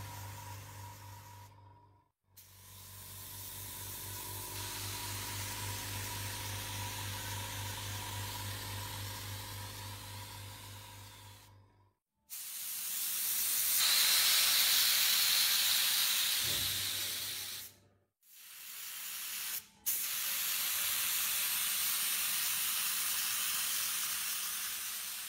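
Anest Iwata food spray guns spraying chocolate with compressed air: a steady hiss in several stretches, each cut off sharply. The stretch from about twelve to eighteen seconds in is the loudest. A low steady hum runs under the first stretches and ends about twelve seconds in.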